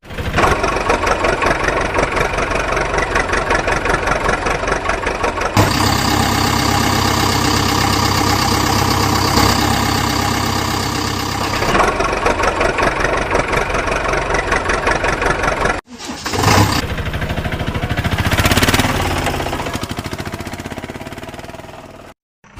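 Heavy diesel engine sounds, running and idling with a fast pulsing throb, in several spliced segments that change abruptly about every five or six seconds.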